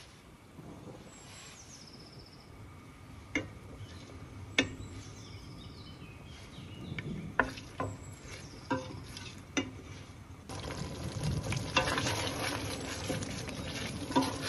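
Wooden spatula stirring thick tomato paste and onions cooking in oil in a stainless steel pot, knocking sharply against the pot's side about seven times, over a steady sizzle. The sizzling and stirring get louder about ten seconds in.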